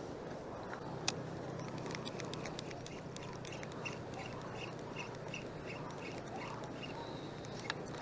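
Steady wash of shallow sea water around a wading angler, with a couple of sharp clicks and a run of faint, evenly spaced ticks, about three a second, in the middle.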